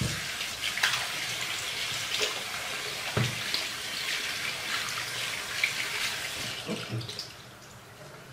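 Bathroom sink tap running while soapy hands are rinsed under the stream, with splashing from the hands. The water is turned off about seven seconds in.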